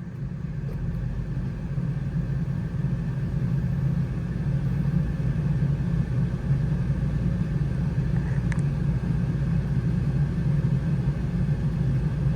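Cummins ISL 8.9-litre diesel in a Freightliner M2 starting and settling into a steady low idle, heard from inside the cab; the sound builds over the first couple of seconds.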